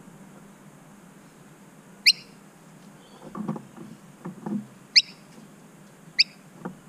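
Noisy miner giving three short, sharp chirps, each a quick upward-sweeping note, spaced a few seconds apart. Softer, lower scuffing sounds come in between.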